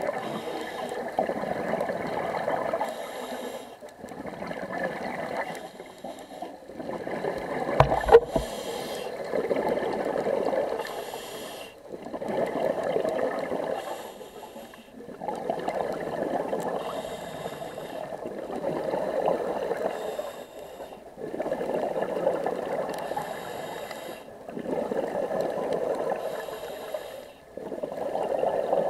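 Scuba diver breathing underwater through a regulator: bubbling exhalations come in a steady rhythm, about one every three and a half seconds, with short pauses and hisses between them. There is one sharp knock about eight seconds in.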